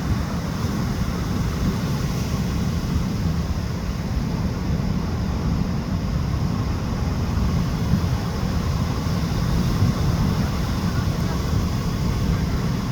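Fishing boat's motor running steadily, mixed with wind buffeting the microphone and the sea, as a continuous low rumble.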